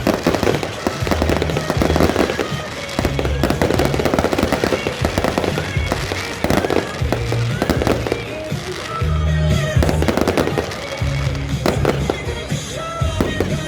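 Aerial fireworks going off in quick succession: many sharp bangs and crackles close together, over music with a heavy bass line.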